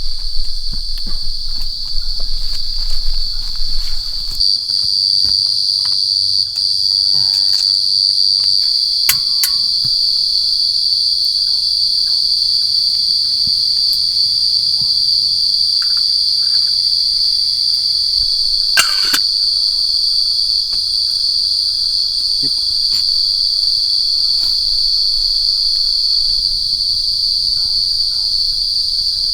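Loud, continuous high-pitched drone of forest insects, one steady whine with no breaks. Scattered small clicks and knocks over the first several seconds, and one sharper knock about two-thirds of the way through.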